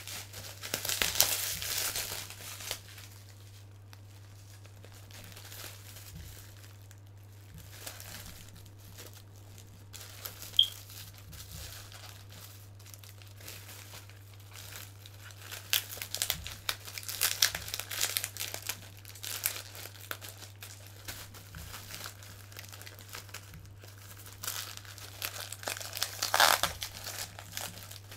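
Plastic bubble wrap crinkling and rustling as it is handled and pulled off action figures. It comes in bursts near the start and again through the second half, with a quieter stretch between. A brief high squeak sounds about ten seconds in, and a steady low hum runs underneath.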